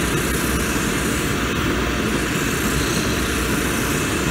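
Shoe-repair finishing machine running steadily while the edge of a cowboy boot's Vibram rubber sole is pressed against its spinning wheel, fine-finishing the sole edge and welt.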